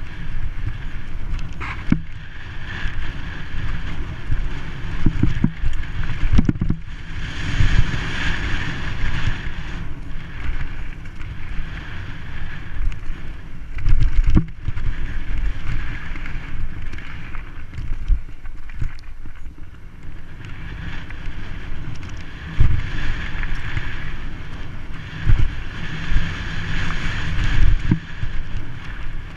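Wind rushing over the microphone of a rider-mounted camera on a fast downhill mountain-bike run, with the low rumble and rattle of the bike's tyres and frame over rough dirt. There are many short knocks from bumps, with the hardest ones about halfway through as the bike crosses a rocky stretch.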